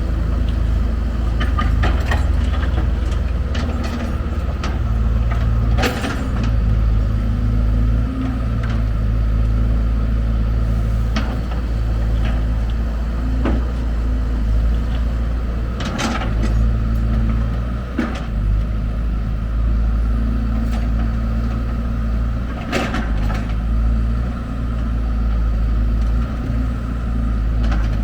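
Heavy diesel machinery at work during loading of a dump truck: an engine running steadily at a low pitch, broken by scattered sharp knocks and clanks, the loudest about six seconds in, twice around fifteen to eighteen seconds, and again near twenty-three seconds.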